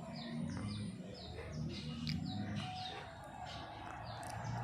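Small birds chirping, short falling chirps repeated about two to three times a second, over a low hum.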